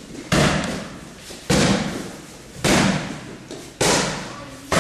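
Strikes landing on a handheld focus pad: five sharp slaps, about one a second, each with a short echo off the hall.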